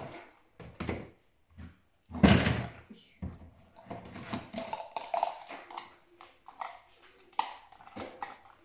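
Household objects being handled and set down on a plastic folding table: a run of short knocks and clatters, the loudest about two seconds in.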